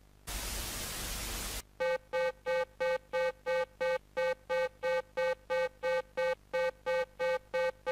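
A burst of static hiss lasting about a second and a half cuts off, followed by a rapid pulsing electronic alert beep, about three short tones a second, as used to open an emergency alert broadcast.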